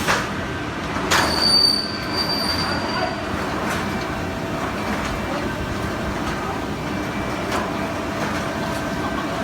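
Industrial machinery running with a steady mechanical din, a thin high whine for about two seconds starting a second in, and a few faint clicks.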